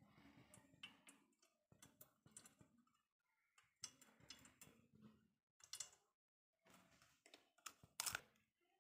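Very faint, scattered clicks and small taps from an egg being separated, its white dropping into a stainless steel bowl. The clearest come about four, six and eight seconds in.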